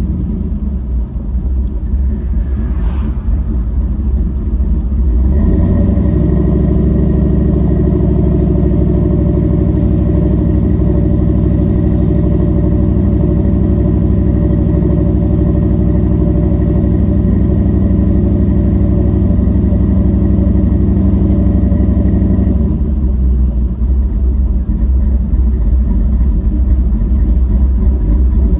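Ford Lightning pickup's swapped-in GM LS V8 engine running under way, heard from inside the cab. The engine note steps up about five seconds in, holds steady for a long stretch, and drops back near the end.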